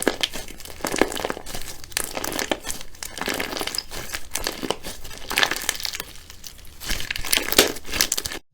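Slime being squished and worked, making a dense, irregular run of crackling pops and squelchy clicks. The sound cuts off abruptly near the end.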